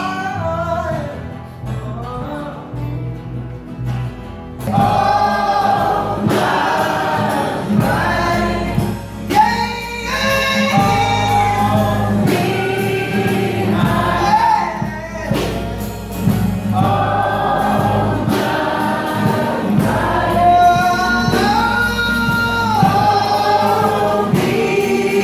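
A song sung over instrumental accompaniment, with guitar just before. It is softer for the first four seconds or so, then fuller and louder.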